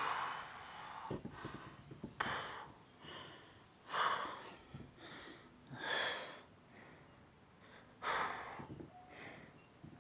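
A man breathing hard from exertion: a strong breath about every two seconds, with softer breaths in between.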